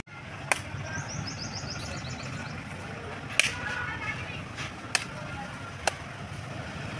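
Long curved knife chopping into palmyra palm fruits (ice apples) to open them: four sharp chops, the loudest about three and a half seconds in, over a steady low background hum. A quick run of high chirps sounds between about one and two and a half seconds in.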